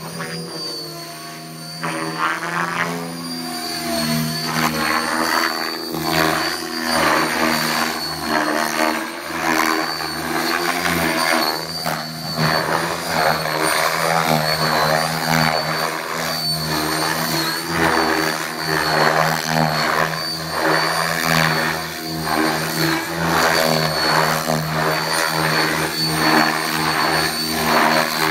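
Radio-controlled helicopter flying aerobatics. The rotor and drive sound keeps swelling and sinking in pitch with the manoeuvres, under a steady high whine. It grows louder about two seconds in.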